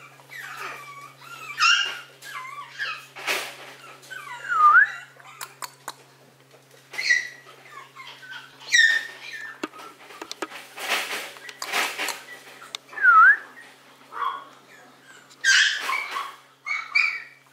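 Maltese puppy whimpering and yipping in many short, high calls, two of them quick squeaks that dip and rise, with noisy rustling bursts in between.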